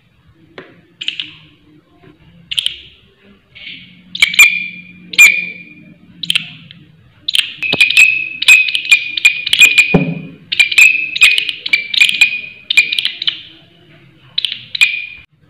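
Green leaf-winged katydid (bush cricket) calling: loud, ringing chirps, each starting with a sharp click. They come singly at first, then in a fast run of about three a second from about halfway through. There is a low thump about ten seconds in.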